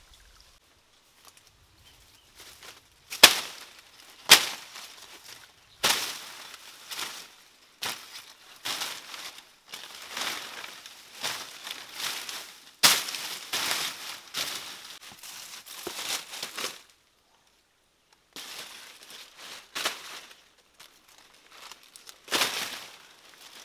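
Dry banana leaves and brush crackling and rustling as they are handled and pushed aside, with several sharp cracks like snapping stems, the loudest two a few seconds in.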